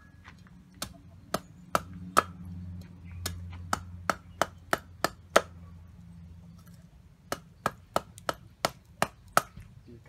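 Cleaver slicing through food onto a wooden chopping board: sharp knocks about three a second, in two runs with a pause of about two seconds between them.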